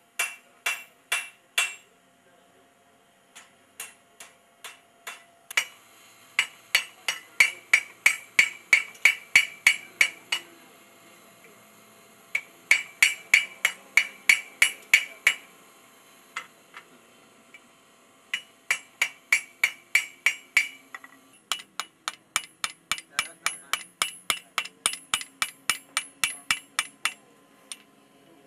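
Hand hammer striking a red-hot railroad spike on a steel anvil, forging it into a tomahawk head. The blows come in runs of about four a second, each with a bright ring from the anvil, broken by short pauses between runs.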